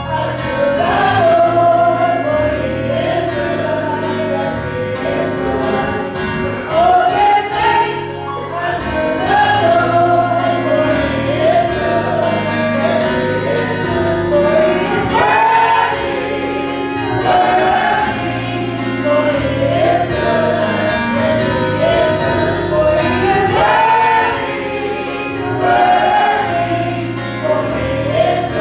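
Gospel choir singing a song over steady instrumental accompaniment.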